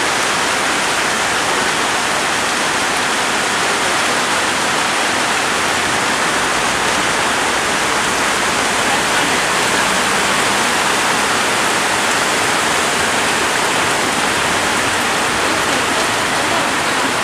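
Heavy rain pouring down and floodwater rushing along a street, making a steady, dense hiss.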